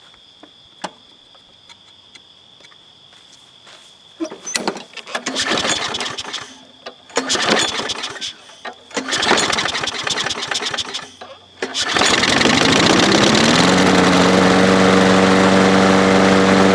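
Craftsman push mower's small engine: a few faint clicks while it is primed, then several pulls on the recoil starter that crank it over with rattly sputters. Just before twelve seconds in it catches, revs up briefly and settles into a steady run, showing it starts once primed.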